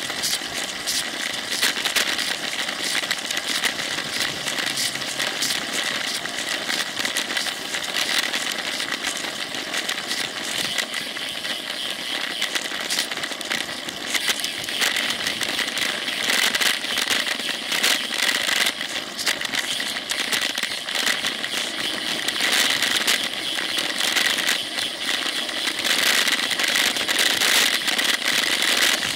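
Ride noise picked up by a rear-facing Cycliq camera on a moving road bike: a steady hiss with constant rattling and clicking as the camera shakes over the road surface.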